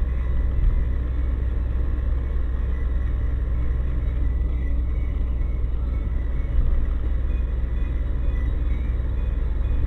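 Steady low rumble of a car on the move: engine and road noise, with two small bumps in it.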